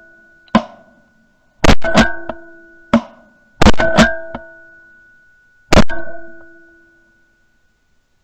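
A series of loud sharp bangs: four heavy ones about two seconds apart, each quickly followed by one or two lighter hits and a ringing tone that dies away over a second or so, with a short sharp click between the first few.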